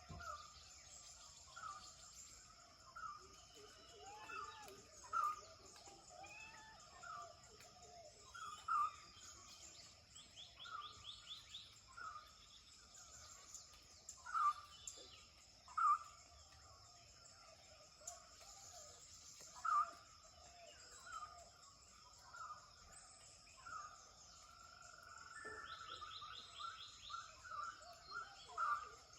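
Dawn chorus of several wild birds: short calls repeated every second or two, with a quick trill twice, over a steady high-pitched background drone.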